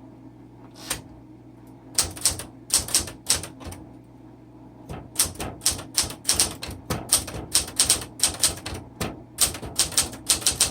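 Smith Corona Classic 12 manual typewriter being typed on, its type bars striking the paper. A single keystroke comes about a second in, then a quick run of keystrokes, a short pause, and a longer, steadier run of strikes.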